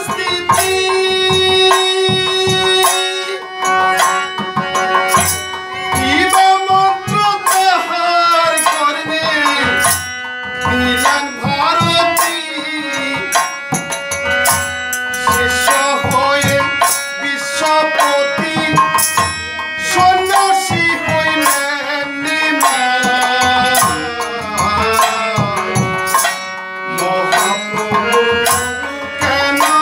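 A man singing to a harmonium, its reeds holding steady chords under his voice, with a double-headed barrel drum played by hand in a quick, steady rhythm.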